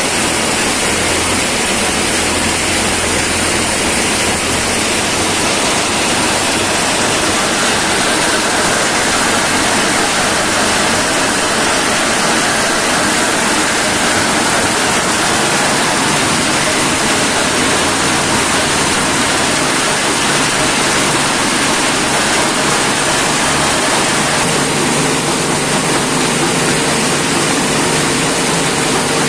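Stone-crushing plant running: a jaw crusher belt-driven by an electric motor, with conveyor belts carrying crushed stone, makes a loud, steady noise.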